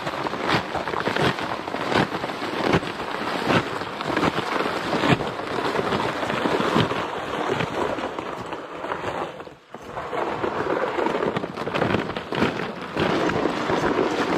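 Freezing rain pattering steadily on rain gear, with regular footsteps crunching on an icy, snow-covered road, about one step every two-thirds of a second, as the walkers haul loaded toboggans uphill. The sound briefly drops out about two-thirds of the way through.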